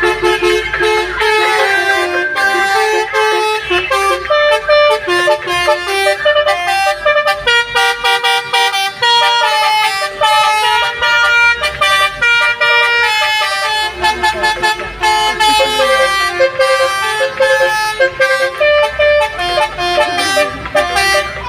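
Telolet horns, a bank of multi-tone electric air horns, playing a continuous melody. Several pitches sound together and change note in quick steps throughout.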